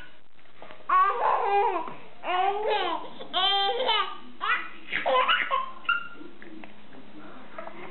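A baby laughing in a run of about half a dozen bursts, stopping about six seconds in.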